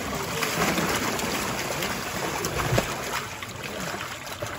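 Water pouring out of a tipped plastic tub into a hole in the ice, with live trout sliding out and splashing into the water.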